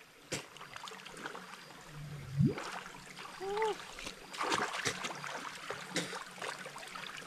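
Water splashing and trickling, with scattered small knocks and clicks and a short arching tone about three and a half seconds in.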